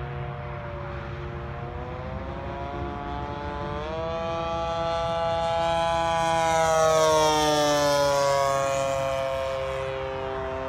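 Gas engine and propeller of an Ultra Hots RC model plane running in flight. The engine note rises about four seconds in and grows louder as the plane makes a low pass, then drops in pitch as it goes by and fades.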